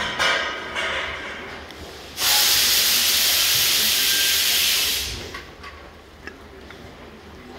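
A few short rushes of noise, then a loud steady hiss that starts abruptly about two seconds in and cuts off about three seconds later, over a low steady hum.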